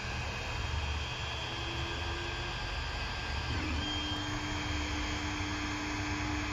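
Creality Ender 3D printer running a print: a steady whir of its cooling fans with a low hum, over which the stepper motors sing in held tones that change pitch as the print head moves, one short tone about two seconds in and a longer one from about halfway through.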